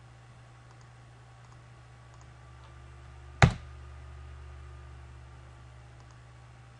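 Computer mouse clicking: a few faint clicks, then one sharp, loud click about three and a half seconds in, over a low steady hum.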